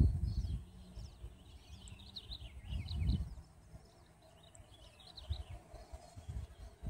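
Wind gusting on the microphone, loudest at the start and about three seconds in, with small birds chirping and twittering in the background.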